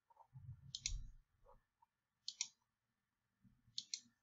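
Faint computer mouse clicks while clicking through a slideshow: a click about a second in, another a second and a half later, and two in quick succession near the end, with a soft low bump around the first.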